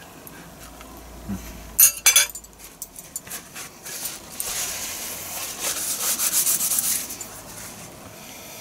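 A knife and fork set down on a plate, a few sharp clinks about two seconds in, followed by a paper napkin rustling and rubbing for about three seconds as hands are wiped.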